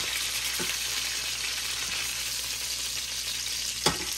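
Chicken pieces frying in hot oil in a stainless steel skillet: a steady sizzle, with a faint tap about half a second in and a sharp knock near the end.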